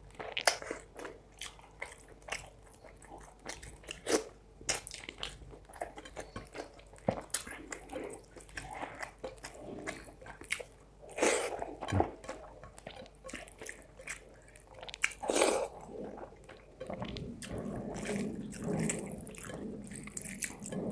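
Close-miked eating: a person chewing and biting mouthfuls of rice and spicy fish curry, with irregular wet smacking and crunching sounds and a few louder wet bursts.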